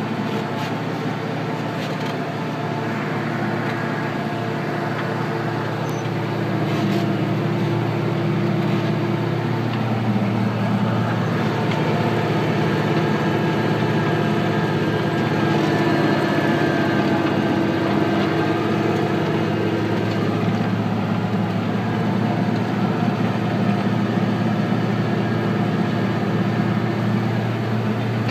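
Deutz Agrotron 130 tractor's diesel engine running steadily under load as it pulls a six-furrow plough, heard from inside the cab. The drone gets a little louder about eight seconds in.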